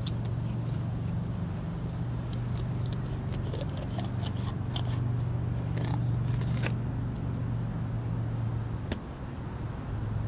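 A knife cutting fillets from a northern snakehead's scaly body, making scattered small scrapes, crackles and clicks, with one sharp click near the end. Under it runs a steady low hum and a thin high whine.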